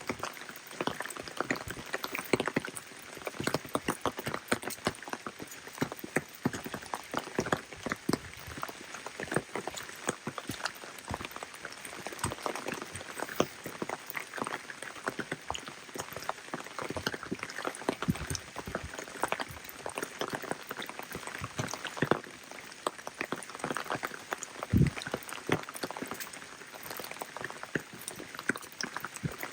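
Rain falling, with many close drops ticking irregularly and densely over a steady hiss; one heavier dull thud stands out near the end.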